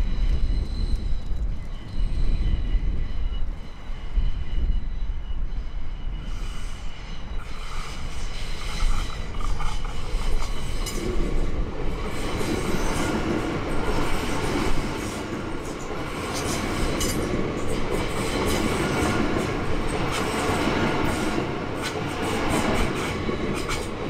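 A High Capacity Metro Train, an electric suburban train, passing close by. A steady high whine comes first; from about halfway in, the rolling noise grows louder and the wheels click over the rail joints as the carriages go past.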